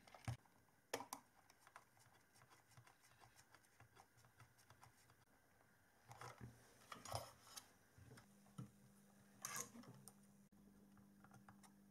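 Near silence broken by faint, scattered clicks and taps as hands fit a circuit board and wires into a 3D-printed plastic case, with a few small clusters of clicks. A faint low hum starts about two-thirds of the way through.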